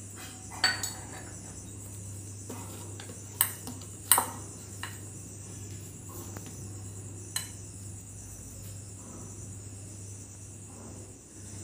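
Hands pressing and turning a ball of oiled dough in a white bowl, with a few sharp clinks against the bowl, the loudest about four seconds in. A steady high-pitched drone runs behind.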